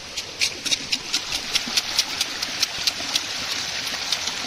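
A machete blade chopping quickly at a bamboo shoot, hacking off its husk in sharp strikes at about four or five a second, over a steady stream of running water.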